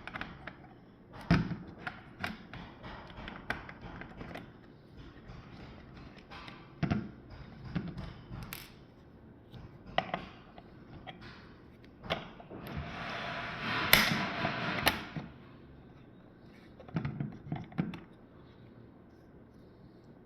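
Scattered clicks, taps and knocks of small plastic parts being handled, with a longer rustling, scraping stretch about two-thirds of the way through.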